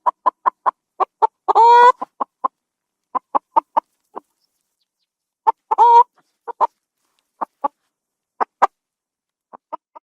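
Domestic chicken clucking in runs of short clucks, twice breaking into a longer, wavering squawk.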